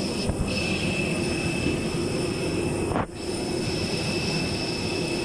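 Steady airliner cabin noise: a constant rumble and rush with a few high, even tones over it. It dips briefly about three seconds in.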